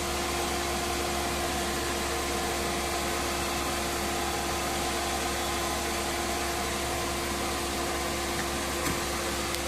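Steady noise inside a car cabin, with the heater blower fan running over the engine's low drone and a constant hum tone.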